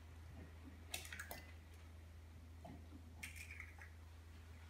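Faint small clicks and soft wet sounds of a raw egg being pulled open over a cup and its shell handled, over a steady low electrical hum.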